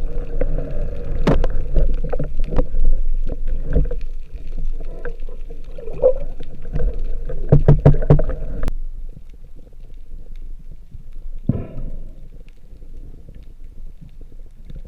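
Muffled water sloshing and gurgling with repeated sharp knocks, picked up by a camera in the water during a freedive. The sound cuts off abruptly a little past halfway to a quieter wash, with one more knock a few seconds later.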